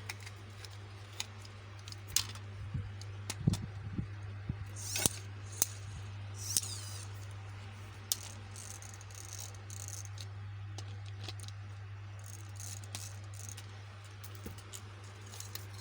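Scattered clicks and short rattles of wires and small parts being handled and connected, over a steady low hum.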